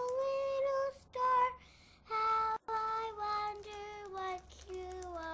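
A young girl singing a simple tune, one held note after another with short breaths between phrases, the melody stepping down in pitch over the second half.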